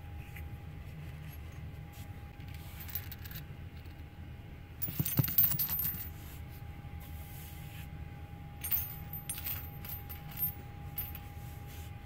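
Cast copper and bronze arrowheads clinking against one another as they are handled and set down, with a cluster of clinks about five seconds in and lighter clicks a few seconds later. A steady low hum runs underneath.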